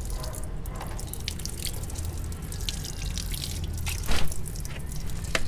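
Water dripping and splashing onto a concrete floor, leaking from a sediment filter line whose housing has been opened, in scattered irregular drips over a low steady hum, with a louder noise about four seconds in.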